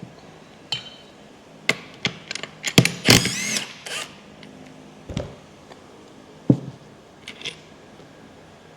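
A power tool runs in one short burst about three seconds in, taking the bolts out of an ATV transmission's gearbox mount. Around it are scattered sharp clicks and knocks of tools and metal parts, the loudest a sharp knock near the middle.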